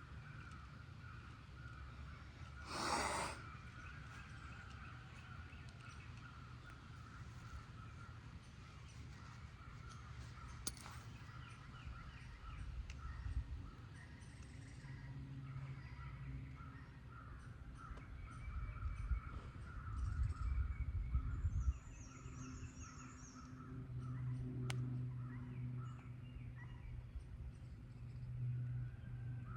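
Outdoor ambience with birds calling repeatedly, over a low rumble, and a brief burst of noise about three seconds in.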